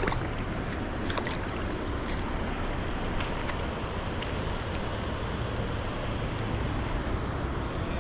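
Mountain creek water rushing steadily over rocks, an even hiss with a few faint clicks near the start.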